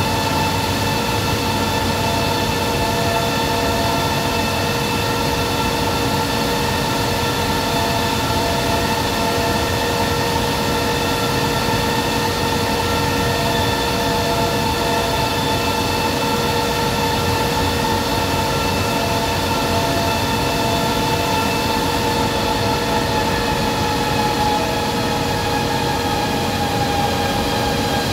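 A corrugator production line running at speed: a steady industrial drone with several constant whining tones over it, unchanging throughout.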